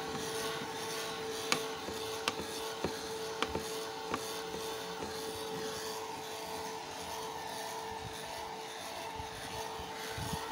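Toothbrush bristles scrubbing over baby hamsters and rustling their bedding, a steady scratchy rubbing with a few sharp clicks in the first four seconds.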